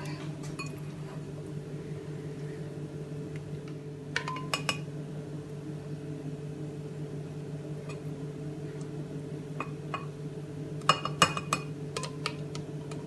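Spatula scraping and tapping a blender jar against a glass bowl while emptying thick mayonnaise into it: a few light clinks about four seconds in and a quick run of clinks near the end, over a steady low hum.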